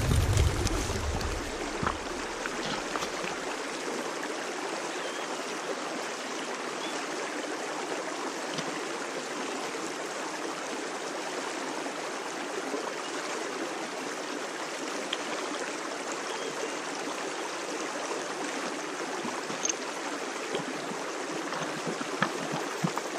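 Steady rushing of flowing stream water, with a few faint clicks along the way.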